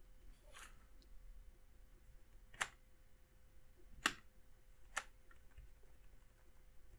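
Computer keyboard keystrokes: a few sharp, isolated key clicks, the three clearest coming about a second apart past the middle, over a faint steady hum.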